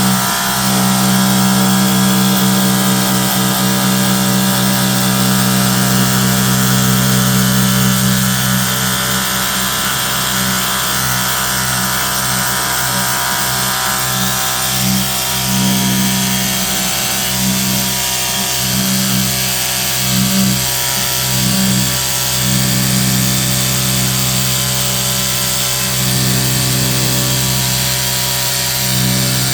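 Cordless pressure washer running steadily, its motor-driven pump humming over the hiss of the spray, the hum dipping briefly now and then in the second half.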